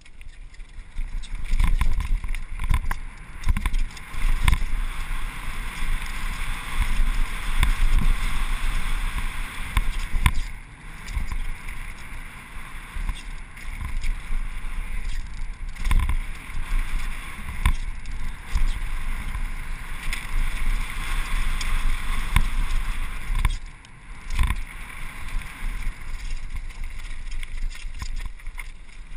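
Wind rushing over a helmet camera's microphone at riding speed, with frequent low thumps and rattles from a chainless Specialized Demo downhill mountain bike running over a bumpy dirt trail. The rush swells and fades with speed and briefly drops away near the end.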